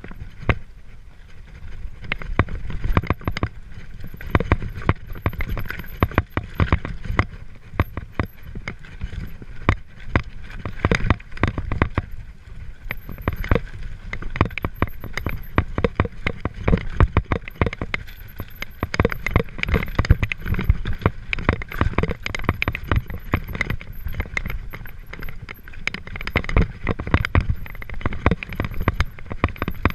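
Mountain bike clattering over loose rock on a descent: a dense, irregular stream of knocks and rattles from the tyres, fork and chain hitting stones, over a constant low rumble of wind and rolling noise on the camera's microphone.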